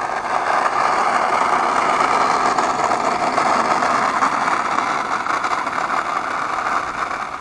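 Electric motor and propeller of an E-flite Cessna 150 RC model plane, running as a steady hum while the plane lands and rolls out on the runway. The hum eases slightly near the end.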